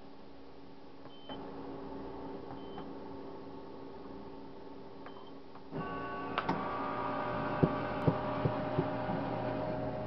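Van Houtte single-cup coffee machine: three short high beeps as its selection buttons are pressed, over a steady electrical hum. A little before six seconds the brewer starts up with a louder steady mechanical running sound and a series of sharp clicks and clunks as it brews.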